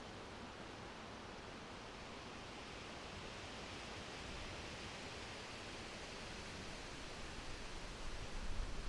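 Summer wind blowing through forest trees: a steady rushing rustle of leaves that swells a little around the middle. Near the end a stronger gust sets in, adding a low rumble.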